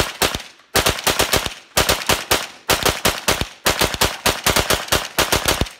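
MP5-clone firearm with a binary trigger, which fires once on the pull and once on the release, fired in rapid strings of shots: about six quick runs, each under a second, with short pauses between them.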